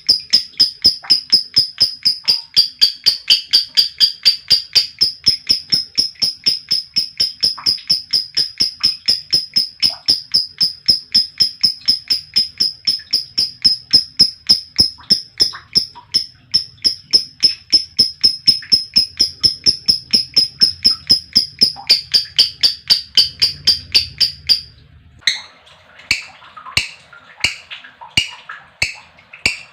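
Female lovebird chattering in a long unbroken 'ngekek': a fast, even series of sharp, high chirps, about five a second, for some 25 seconds. After a brief break, slower, spaced chirps follow, about one and a half a second.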